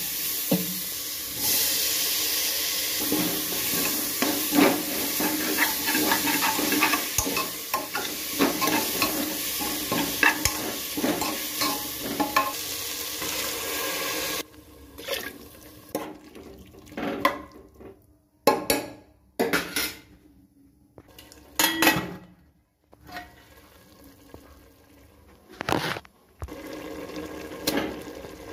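Diced potatoes and flat beans frying in a pan: a steady sizzle with a spoon stirring and clicking against the pan. About halfway through the sizzle stops, and only occasional spoon scrapes and knocks on the pan remain.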